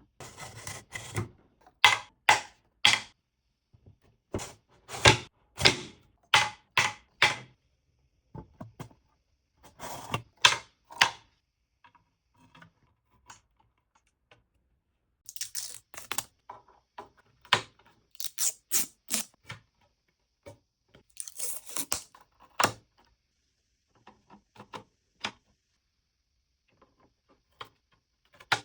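Runs of short clicks, snaps and tearing sounds from unpacking and fitting together the pieces of a model parking-garage diorama kit, with quiet pauses between the runs.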